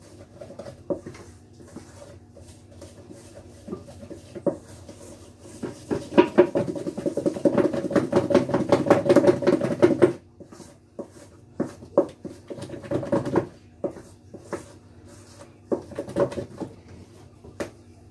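Wooden spoon beating butter and icing sugar together in a stainless steel mixing bowl to make buttercream icing: quick scraping and knocking strokes against the bowl. The strokes come fast and loud for about four seconds in the middle, then slow to scattered single knocks.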